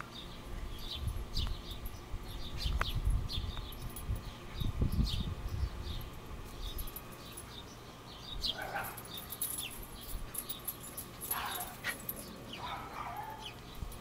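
A dog gives three short cries in the second half, over steady chirping of sparrows.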